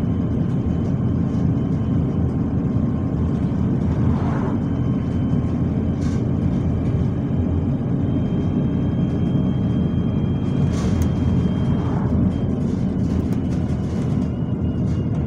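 Bus in motion heard from inside the saloon: steady engine and road rumble at cruising speed, with a faint thin high whine over it and a few brief scratchy noises.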